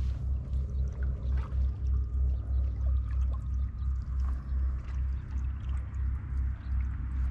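Canoe under way on calm water: a low rumble fluttering about four times a second at the bow-mounted microphone, with small scattered drips and ticks of water from the paddling.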